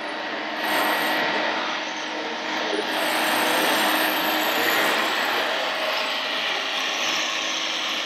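Steady mechanical whirring and rattling of radio-controlled model construction machines, with a model excavator working its bucket over a loaded model dump truck. The sound swells about a second in and again midway.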